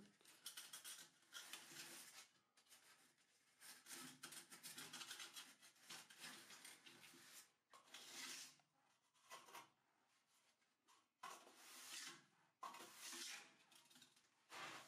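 Faint, irregular scraping strokes of a straightedge and a steel trowel being drawn over loose epoxy-resin and quartz-sand screed mortar, levelling it to height around the drain.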